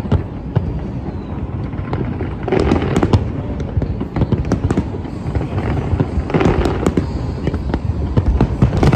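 Large aerial fireworks display: shells bursting one after another in a dense barrage of deep booms and sharp cracks, with heavier clusters about two and a half and six seconds in.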